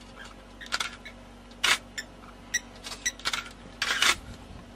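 Short sharp clicks, about seven or eight of them, some in quick pairs, over a faint steady hum.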